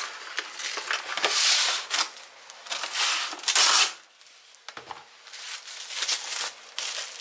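Plastic cling wrap crinkling and tearing as it is pulled out and wrapped around a cut squash. The loudest, longest crinkling comes in the first four seconds, with quieter crackles after.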